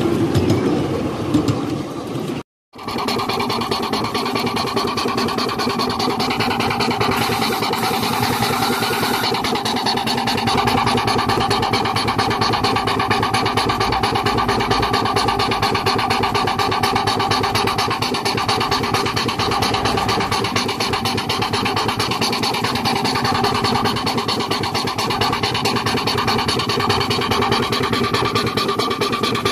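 Miniature live-steam traction engine running along steadily, a continuous fast mechanical clatter with a constant hum, after a momentary cut-out about two and a half seconds in.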